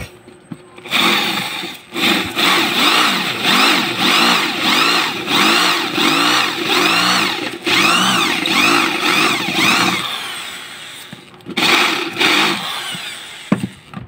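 Electric hand drill with a metal-cutting bit drilling out a rivet on a washing machine motor's end cover, its motor whine rising and falling in pitch again and again. It falls away about ten seconds in, then runs once more briefly near the end.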